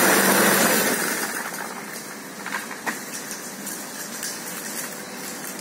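Petrol walk-behind lawn mower engine running, loud and close at first, then growing fainter about a second in as the mower is pushed away across asphalt.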